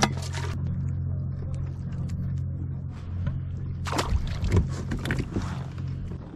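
Fishing gear being handled on a kayak: a cluster of sharp clicks and rattles about four seconds in, over a steady low hum.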